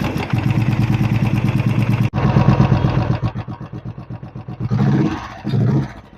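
Royal Enfield Classic 350 BS6 single-cylinder engine running just after an electric start, with a fast rattle from the clutch side, which the mechanic likens to a chain and calls a nasty noise. He later traces it to the electric starter's one-way clutch bearing and a loose clutch housing nut. The engine sound fades out near the end.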